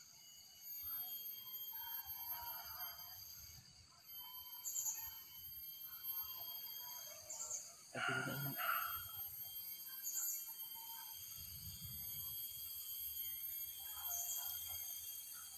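Tropical forest ambience: a steady high-pitched insect drone, a bird repeating a short high call every two to three seconds, and faint distant calls, with one nearer, louder call about eight seconds in.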